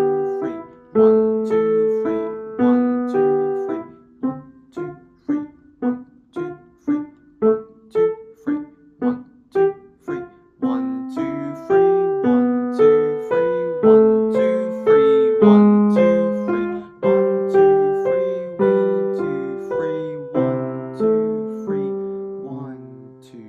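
Piano playing a simple piece in three-four time. A stretch of short detached notes comes a few seconds in, then longer held notes, and it ends on a low note that fades away.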